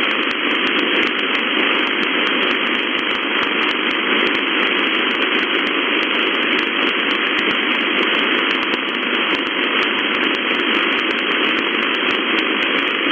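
Shortwave radio static from an SDR receiver in upper-sideband mode on an empty frequency: a steady hiss of band noise cut off sharply above the voice passband, with fine crackling clicks throughout.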